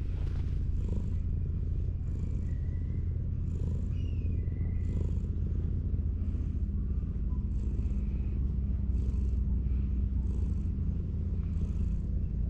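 Orange tabby cat purring while being stroked: a steady low rumble that swells about once a second.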